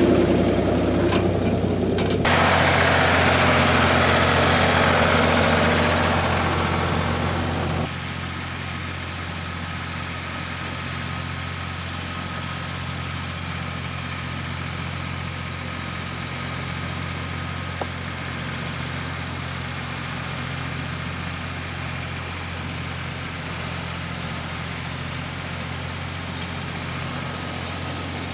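An engine running steadily at idle. For the first eight seconds or so a loud hissing rush sits over it, then cuts off suddenly, leaving only the engine's steady hum.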